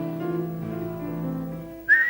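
Instrumental accompaniment playing held notes, then near the end a loud, short whistled note that bends in pitch.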